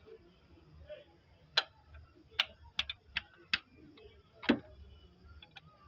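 About seven sharp clicks and knocks, irregularly spaced over three seconds, the last one the loudest and heaviest: hand tools knocking against engine parts while the common-rail fuel rail is being removed.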